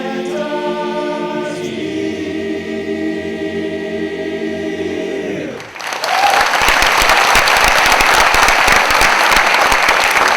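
Barbershop chorus singing a cappella in close harmony, holding a final chord that slides down and stops a little over halfway through. A louder burst of audience applause then breaks out and carries on.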